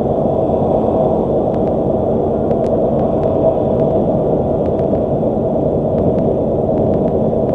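Steady road and engine noise inside a vehicle's cab at highway speed, a low even rumble.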